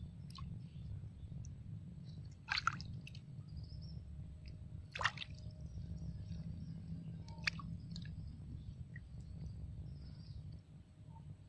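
A hand sloshing and groping in a shallow hole of muddy water, with wet squishing and three sharp splashes about two and a half seconds apart, over a steady low rumble.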